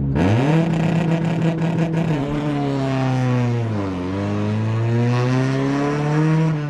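Acura Integra's four-cylinder engine revs up sharply and is held at a steady pitch for about two seconds by launch control. The pitch then falls as the car pulls away and climbs steadily under hard acceleration, dropping suddenly near the end at a gear change before it climbs again.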